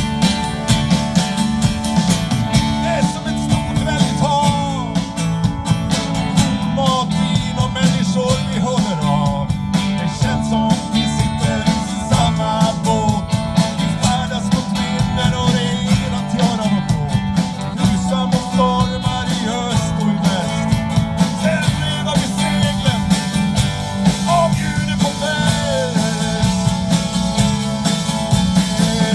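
Live band playing a song: drum kit keeping a steady beat under electric bass, acoustic and electric guitars and keyboard, with a lead melody line running over it.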